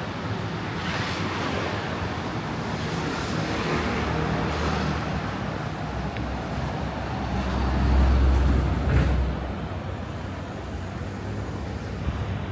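City street traffic noise, steady throughout, with a louder low rumble swelling and fading between about seven and nine and a half seconds in as a vehicle passes close by.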